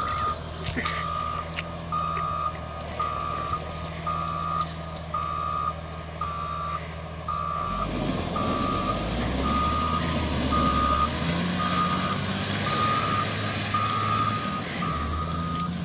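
Bulldozer's reversing alarm beeping about once a second over the steady running of its diesel engine, whose note shifts about halfway through.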